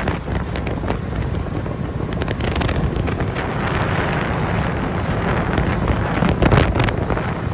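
Wind buffeting the microphone, with a steady low rumble underneath.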